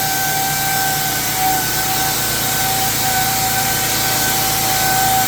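A power tool's motor running steadily with a constant high whine and hiss, without a break.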